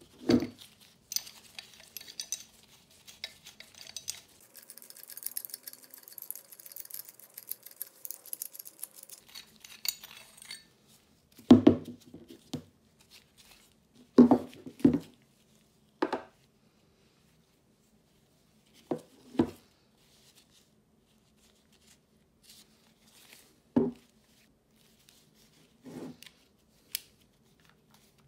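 A steel pipe wrench being taken apart by hand on a wooden table. Scattered metal clunks and clinks come as the hook jaw and adjusting nut are worked off and the parts are set down, the loudest a few clunks in the middle. Light scraping and rattling fill roughly the first ten seconds.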